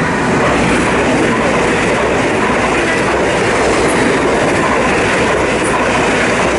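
Train passing close by at speed: a loud, steady rush of noise.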